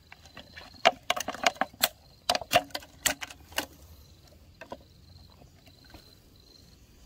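Clear plastic water bottle crackling and clicking as it is handled and lifted off a cricket burrow: a quick run of sharp crackles in the first few seconds, then a few scattered clicks.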